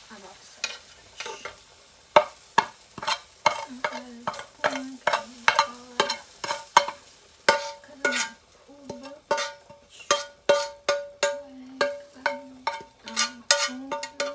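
A slotted plastic turner stirring and scraping food in a frying pan, about two sharp clacks a second, over a faint sizzle of frying sausage and corn.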